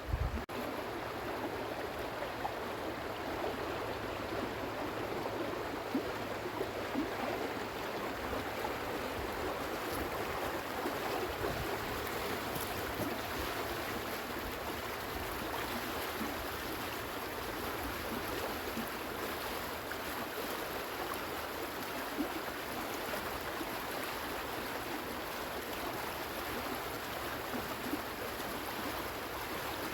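A shallow stream running steadily, a continuous even rush of water.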